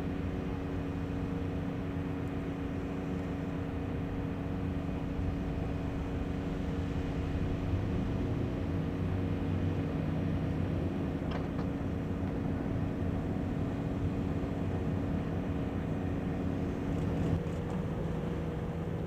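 Steamship Wilfred Sykes, a Great Lakes freighter, passing close by with a steady machinery hum made of several steady tones. The pitch of the hum shifts about seventeen seconds in.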